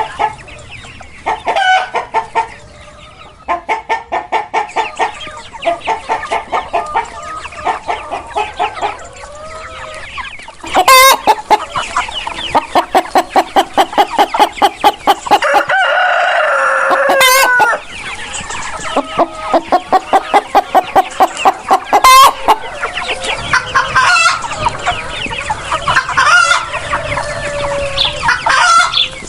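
Chickens clucking in fast repeated runs, with a rooster crowing and a few sharp loud squawks about 11, 17 and 22 seconds in.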